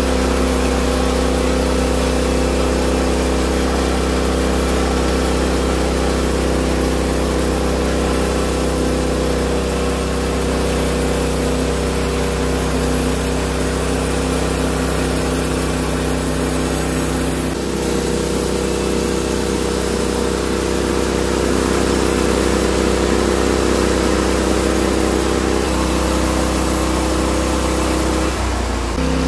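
Norwood HD36 portable band sawmill running steadily under power, its engine holding a constant note. The engine note shifts about two-thirds of the way through and again near the end.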